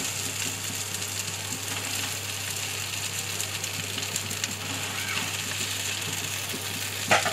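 Oil and spice masala sizzling steadily in a frying pan as boiled potato cubes are added, with a short sharp knock near the end.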